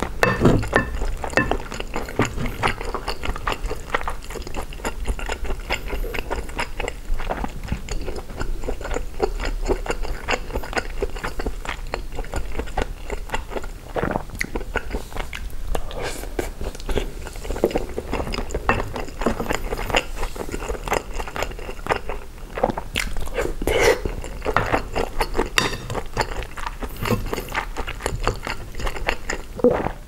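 Close-miked chewing and mouth sounds of someone eating gumbo over rice, a dense run of small clicks and squishes that keeps going without a break.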